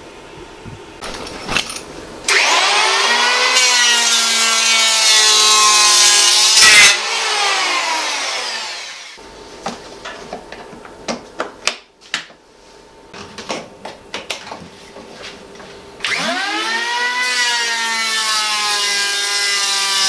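An electric motor starts sharply and spins up to a steady high whine. It runs for about five seconds, then winds down, its pitch falling. After several seconds of scattered clicks and knocks it starts and spins up again.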